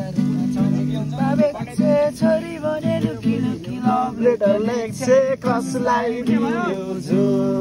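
A young man singing to a strummed acoustic guitar, the guitar holding steady chords under the sung melody.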